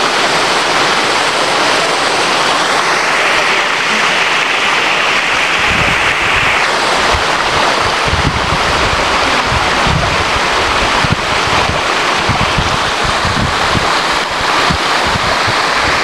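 Steady, loud rush of water from a tall waterfall and the shallow rocky stream below it. From about six seconds in, wind buffets the microphone in low, irregular gusts.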